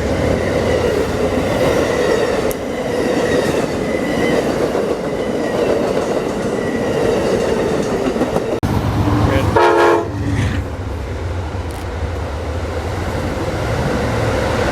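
Train passing with a steady low rumble of the locomotive and rolling cars, its horn sounding over the first few seconds. A brief pitched, stuttering sound comes about ten seconds in.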